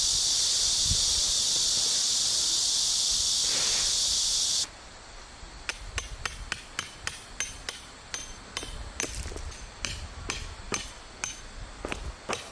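A loud, steady high-pitched hiss that cuts off abruptly about four and a half seconds in, then a run of sharp, ringing metallic taps, roughly two to three a second.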